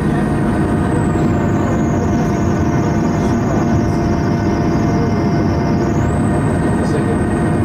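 Steady rushing noise inside the cabin of a parked Boeing 737-800, with a high whine that drops in pitch about a second in, holds, and rises back near the end.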